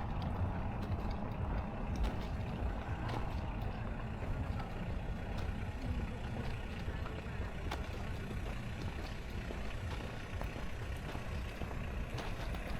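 Steady rumble of road traffic, heavy in the low end.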